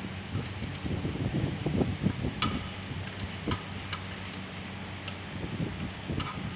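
Sharp metallic clinks and ticks, about half a dozen spread irregularly over several seconds, as metal parts and hand tools are handled on a bare car engine during repair, over a low rumbling background.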